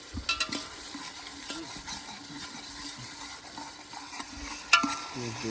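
Onions frying in oil in a metal pot, sizzling steadily while a metal spoon stirs and scrapes them. The spoon clanks against the pot just after the start and again near the end.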